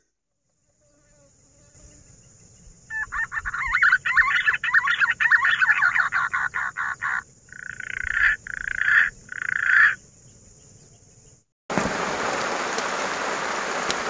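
Frogs calling: a fast pulsing croak for about four seconds, then three short separate bursts. Near the end, steady rain noise starts suddenly.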